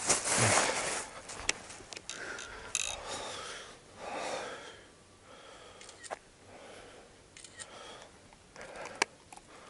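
Footsteps crunching on a sandy dirt trail in the first second, then soft rustling from handling gear and a few sharp isolated clicks.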